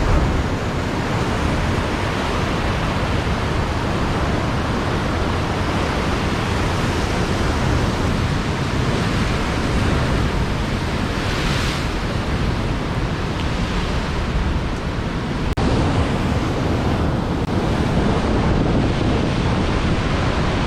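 Sea surf washing on the shore with wind buffeting the microphone, a steady rushing noise that swells briefly about halfway through.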